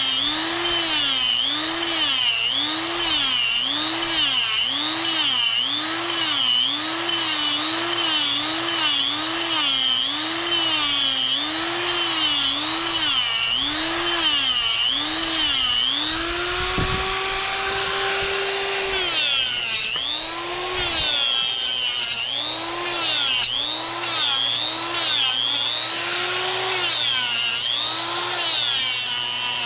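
Harbor Freight Hercules 1/4-inch electric die grinder carving wood. Its motor whine dips in pitch and recovers about once a second as the bit bites in on each stroke. For a few seconds past the middle it runs at a steady pitch without load, then the strokes resume.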